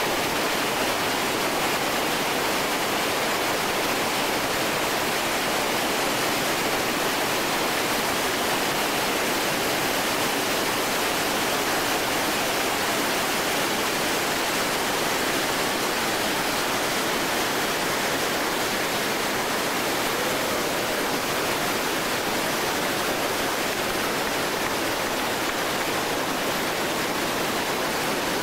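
Loud, steady rush of big whitewater rapids, an unbroken roar of churning river water with no let-up.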